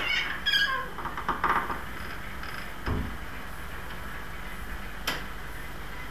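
00-gauge model trains running on a double-track helix: a short falling squeal with several tones at the start, then a quick run of clicks. A low thump follows about three seconds in and a sharp click about five seconds in.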